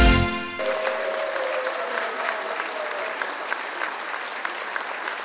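A song ends on its final chord about half a second in, one note of it fading over the next two seconds, and an audience applauding steadily.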